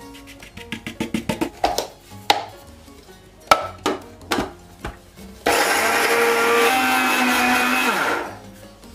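Dried corn starch flakes clattering in a quick run of clicks into a small metal grinder cup, then a few knocks as the cup and lid are fitted on an Aicok electric grinder. Its motor then runs steadily for about three seconds, grinding the flakes to powder, and winds down near the end.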